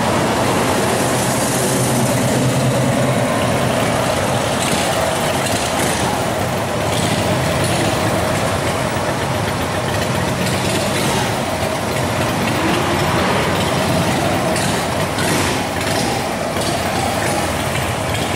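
Busy city-street traffic: cars and heavier vehicles idling and creeping along in congestion. A nearby engine hums low for the first few seconds, and brief hisses come several times.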